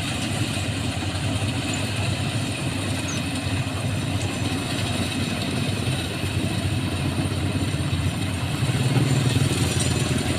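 Rice combine harvester's engine running steadily, swelling a little louder about nine seconds in.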